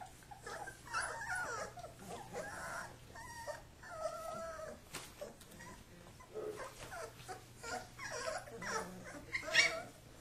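Kuvasz puppies play-fighting, giving a string of short high-pitched cries that bend in pitch, the loudest near the end.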